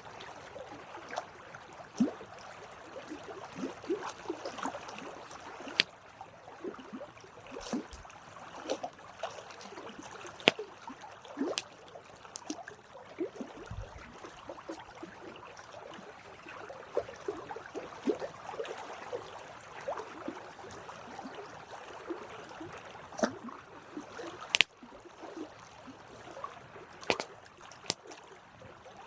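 Wood campfire crackling: a soft, steady hiss broken by frequent irregular sharp pops, a few of them much louder.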